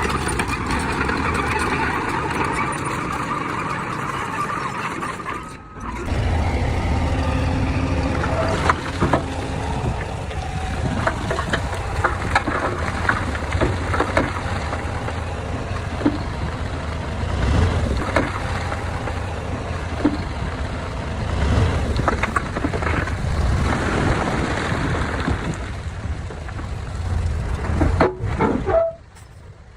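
Heavy diesel earthmoving machinery working: a steady low engine rumble with scattered sharp metallic clanks and knocks. The sound cuts out briefly about six seconds in, comes back with a heavier rumble, and cuts out again near the end.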